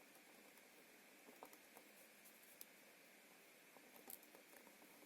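Near silence: faint room tone with a steady faint hiss and a few faint, short clicks from handling at the bench.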